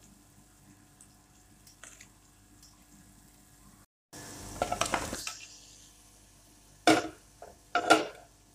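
Cooking in a metal pan: a noisy rush of scraping and sizzling for about a second midway, then two loud clattering knocks of a wooden spoon against the pan near the end.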